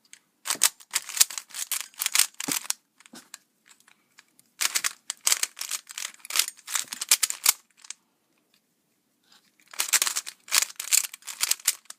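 Stickerless 3x3 speed cube being turned fast, its plastic layers clicking and clacking in three quick runs of turns, with short pauses between them.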